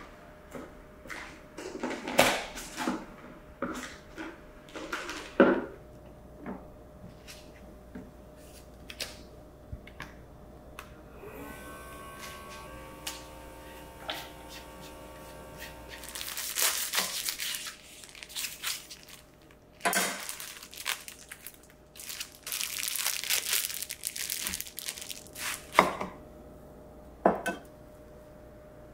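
Kitchen handling sounds: clicks and knocks of a plastic salad spinner lid and containers. Then a ZWILLING Fresh & Save handheld vacuum sealer runs for about four seconds on a glass container's lid. After it come stretches of crinkling and tearing with a few sharp knocks.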